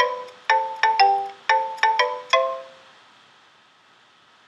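A short chime jingle from a digital textbook's video player: a quick run of ringing notes, each starting sharply and fading, that ends about two and a half seconds in.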